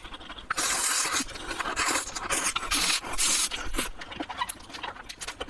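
Spicy instant noodles being slurped up in three long hissing slurps, followed by smaller wet chewing and mouth sounds.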